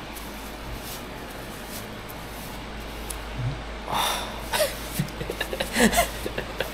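Steady low room tone for about four seconds, then a man's sharp breaths and a few short strained gasps and whimpers, the sounds of pain as his freshly tattooed arm is wiped down.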